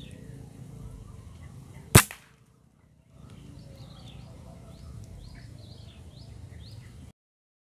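A single sharp shot from a PCP air rifle, a Bocap Predator, about two seconds in, against small birds chirping. The background drops out briefly after the shot and stops abruptly near the end.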